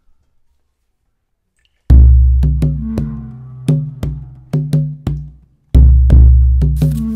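Near silence, then a music track starts about two seconds in with a deep bass hit and a run of sharp, clicking percussion hits over low pitched notes. A second deep bass hit comes nearly six seconds in.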